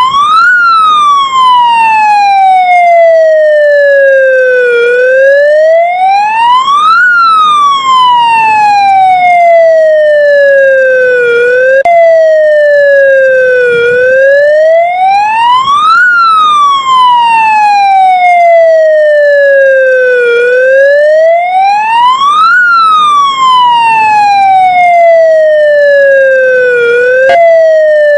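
Ukrainian ambulance siren sounding a loud, slow wail: the pitch rises over about two seconds, then falls more slowly, repeating about every six and a half seconds. Twice the cycle jumps abruptly back to the low point.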